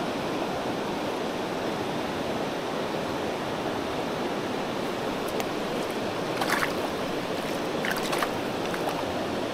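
Steady rushing of a shallow, rocky river flowing close by, with two brief faint sharper sounds about six and a half and eight seconds in.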